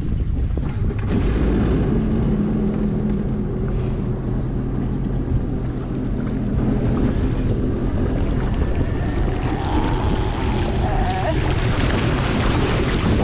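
Sea-Doo RXT-X 300 personal watercraft running on the water, a steady engine drone mixed with rushing water and wind on the microphone.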